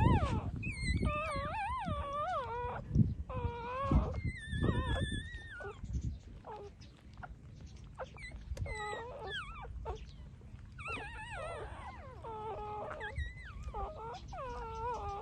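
Newborn puppies, about six days old, whining and squealing while nursing: short, wavering high cries repeated throughout, at times two at once. A few low bumps sound near the start.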